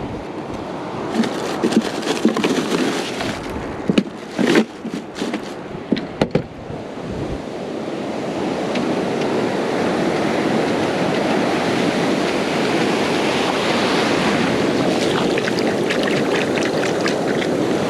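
Ocean surf washing on the beach, with wind on the microphone. Several sharp knocks and handling sounds in the first six seconds, then a steady, slightly louder wash of surf.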